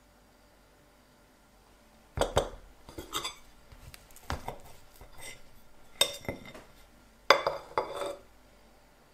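Table knife cutting through a chocolate-coated cake and scraping and clinking against the plate beneath, in a series of short bursts starting about two seconds in.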